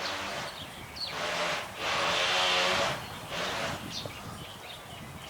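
House sparrows chirping in short calls, partly covered by a loud rushing noise that swells twice, loudest about two to three seconds in.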